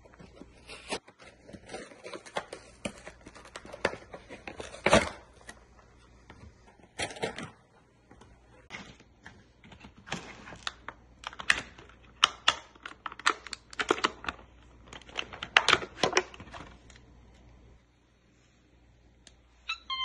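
Cardboard and clear plastic toy packaging being pulled apart and handled: irregular sharp clicks, crackles and tearing, thickest in the middle and dying away to a lull near the end.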